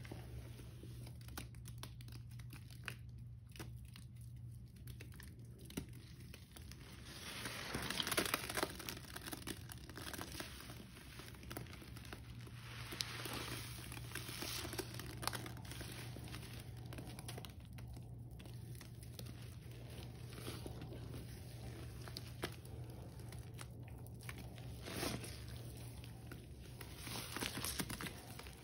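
Hands squeezing and kneading a sponge in thick, foamy Ajax cleanser paste, making continuous wet crackling and squishing sounds. It grows louder about eight seconds in.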